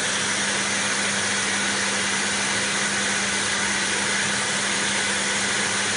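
Canister vacuum cleaner running steadily: an even rushing hiss with a constant low hum under it.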